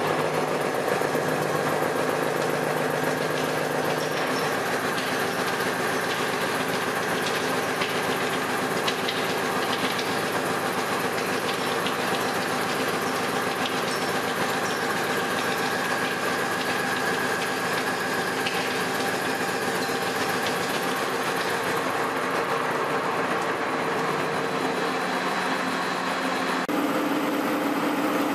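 Heavy CNC milling cutter cutting steel: a steady machining noise with a held whine and scattered small clicks of chips. The tone shifts near the end.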